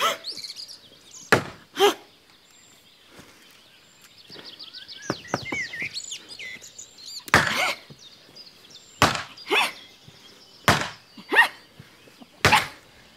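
A long-handled wooden tool struck down hard again and again, making about seven heavy chopping thuds at uneven intervals. Birds chirp between the blows.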